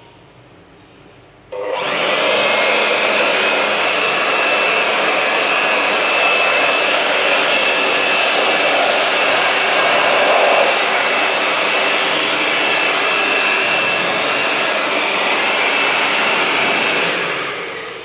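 Handheld electric blower switched on suddenly about a second and a half in and running steadily with a high whine, blowing dust out of a gas water heater's heat exchanger and burner for cleaning; it winds down near the end.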